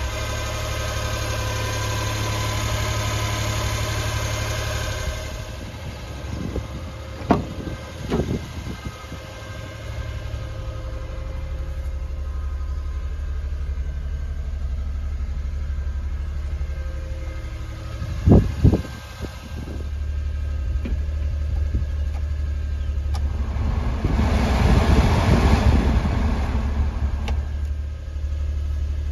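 Suzuki Carry DC51T kei truck's small three-cylinder engine idling steadily. A few sharp knocks come about seven and eighteen seconds in, and the sound gets louder and rougher for a few seconds near the end.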